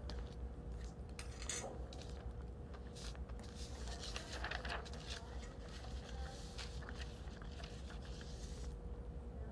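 Steady low room hum with a faint steady tone, and scattered faint clicks and rustles.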